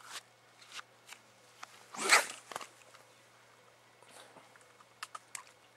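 A carp rod being cast: one loud, short whoosh about two seconds in as the rod swings through and line zips off the reel's spool, with a few faint clicks before and after.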